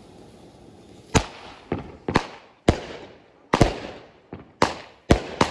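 Small consumer fireworks firing from the ground: after a quiet first second comes a rapid, irregular string of about ten sharp bangs, roughly two a second, each trailing off briefly, as the stars are shot into the sky.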